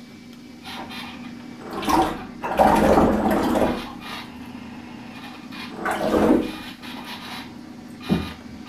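Homemade electric RC boat's propeller churning bathtub water in four throttle surges, the longest about a second, over a steady low hum.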